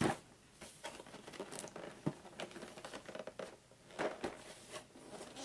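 Cardboard board-game packaging and its contents being handled: a sharp knock at the start, another knock about two seconds in, and scattered light knocks and rustling of cardboard and plastic, with a cluster of knocks about four seconds in.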